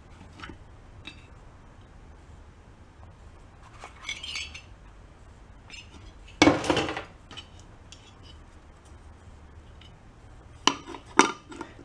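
Metal parts of a dismantled air compressor pump clinking and scraping as the head and valve plate are lifted off. There is a short scrape about four seconds in, a louder clunk with scraping about six and a half seconds in, and a few sharp clinks near the end.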